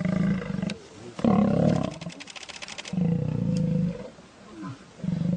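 Male lions growling and snarling at each other in an aggressive face-off, in four deep rough bursts, the second the loudest, with a fast rattling pulse.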